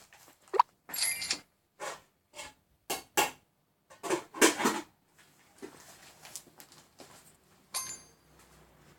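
A series of short handling noises: clicks, scrapes and rustles, roughly one a second, with a sharp click near the start and a brief ringing clink near the end.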